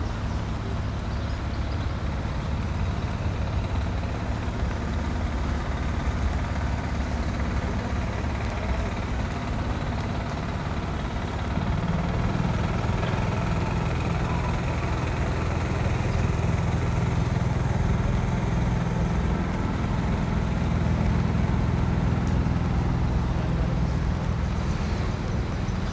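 Heavy road vehicle's engine running steadily in street traffic, with a low hum that grows stronger about halfway through.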